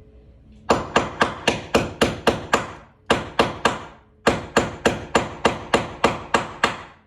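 Hammer striking a nail used as a chisel to knock a hole through a brick wall: three runs of quick, even blows, about four a second, with short pauses between.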